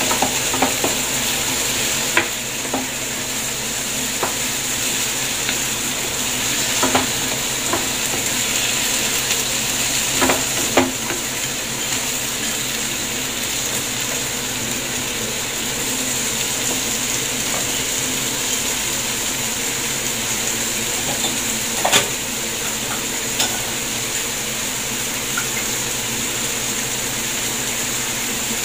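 Chopped vegetables sizzling as they stir-fry in a frying pan, with a steady hiss. A wooden spatula taps and scrapes against the pan now and then, with a few sharper knocks scattered throughout.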